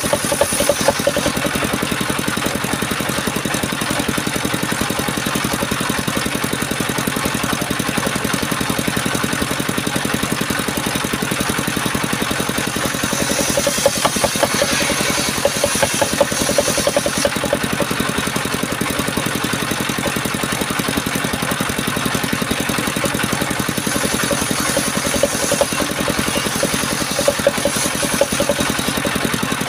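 Engine of a mobile circular sawmill running steadily, its drone swelling with extra higher-pitched sound for a few seconds around the middle and again near the end.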